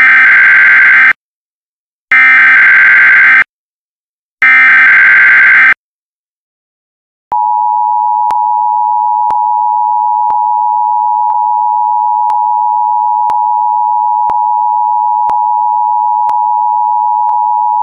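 Emergency Alert System alert: three bursts of SAME header data, each about a second long with a second's gap between, then after a short pause the steady two-tone EAS attention signal (853 and 960 Hz) starts about seven seconds in and holds.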